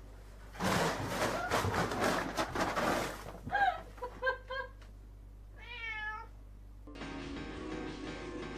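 Domestic cats playing: a noisy scuffle, then four short meows and one longer meow that wavers in pitch. Music starts near the end.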